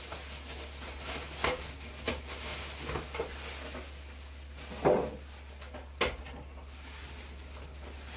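Thin plastic wrapping rustling and crinkling as it is pulled off an electric contact grill, with a few short knocks as the grill is handled on the worktop, the loudest about five seconds in.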